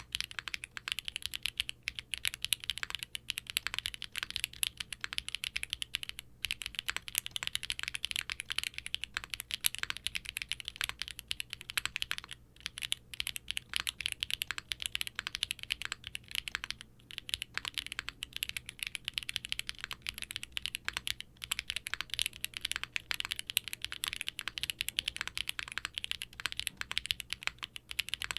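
Continuous fast typing on a 60% mechanical keyboard with HMX K01 light tactile switches, POM plate and GMK double-shot ABS keycaps: a dense stream of crisp keystroke clacks, with a few brief pauses.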